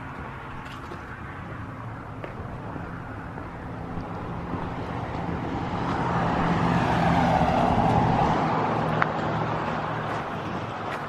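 Road traffic: a vehicle's engine and tyre noise builds to a peak about seven seconds in, then fades as it passes.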